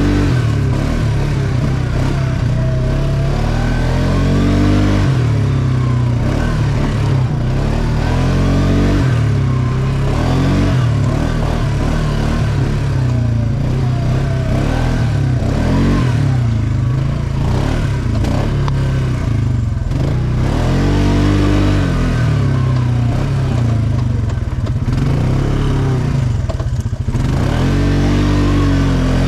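ATV engine running under load on a trail ride, its pitch climbing and falling again and again as the throttle is opened and eased off, over a heavy low rumble.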